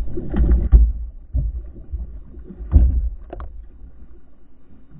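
A hooked fish thrashing and splashing at the side of a kayak: a quick run of loud splashes and thumps in the first second, another about a second and a half in, and a second loud flurry a little under three seconds in, then calmer water.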